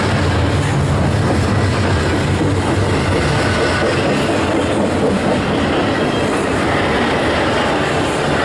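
Freight cars of a Canadian Pacific train rolling past close by: a loud, steady rumble and clatter of steel wheels on the rails, with some wheel squeal.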